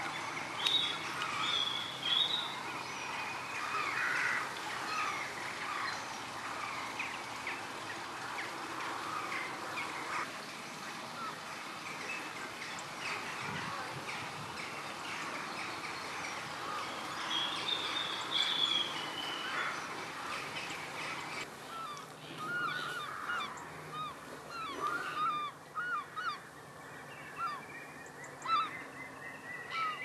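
A flock of birds calling, many short honking calls overlapping. About two-thirds of the way through the sound changes abruptly, and after that the calls are fewer and come one by one.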